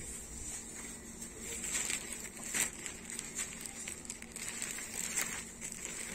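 Shop background: a steady low hum with scattered light rustles and clicks.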